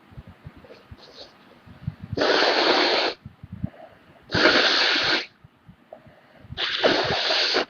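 A woman with a heavy cold sneezing three times, each a loud burst about a second long, spaced about two seconds apart.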